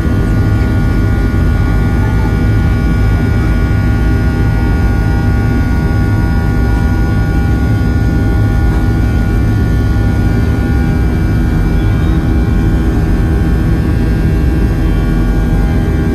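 Jetliner turbofan engines heard from inside the cabin, a steady whine of several held tones over a loud low rumble as the Boeing rolls along the runway.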